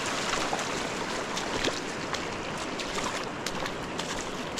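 Steady rush of river water, with small splashes and clicks scattered through it.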